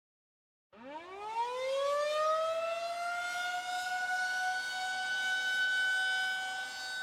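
A siren winding up about a second in: its pitch rises quickly and then levels off into one steady wail.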